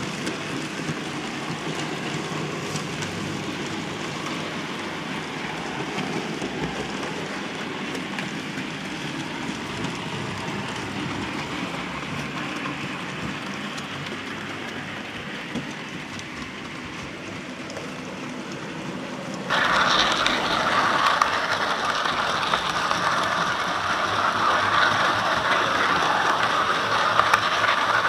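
Bachmann model 2-6-0 Class 2 locomotives hauling goods wagons along model railway track: a steady rolling, running noise of the locomotives and wagon wheels. About two-thirds of the way through it jumps suddenly louder and brighter, with fast ratchet-like clicking of wheels on the track, heard close up from the moving train.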